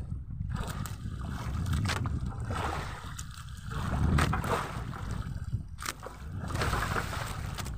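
Sea water sloshing against a small fishing boat's hull over a low, steady rumble, with a few knocks.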